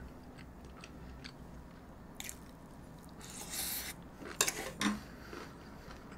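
Close-miked chewing of a mouthful of braised kimchi wrapped around rib meat: soft wet mouth clicks and smacks, with a breathy puff of air a little past halfway and a few louder smacks just after.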